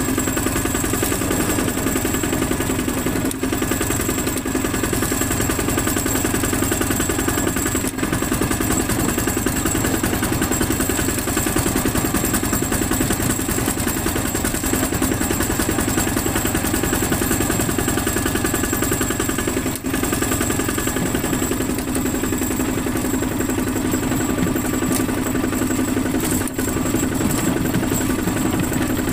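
Two-wheel walking tractor's single-cylinder diesel engine running steadily under way, with a rapid, even chugging beat at constant speed.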